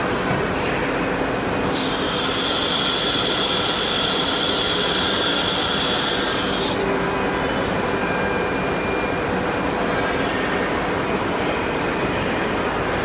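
Steady background machine noise around an automatic-tool-changing CNC router, broken about two seconds in by a loud, high compressed-air hiss that cuts off suddenly some five seconds later. Such a hiss is typical of the spindle's pneumatic tool release and taper air blow during a tool change.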